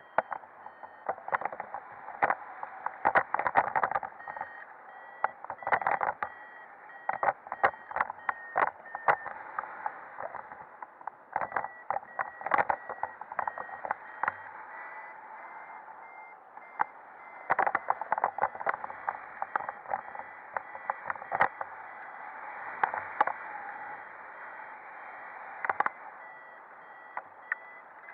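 Wind buffeting a paraglider pilot's camera in flight, in irregular gusty bursts over a steady rush, with a paragliding variometer's repeated beeps underneath, the tone that signals the glider is climbing in lift.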